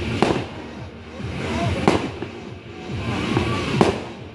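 Aerial firework shells bursting: three sharp bangs spaced just under two seconds apart, with a noisy wash between them.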